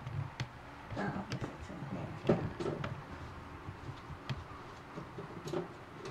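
Scattered clicks and light knocks of containers and food being moved about inside an open refrigerator, the sharpest knock about two seconds in.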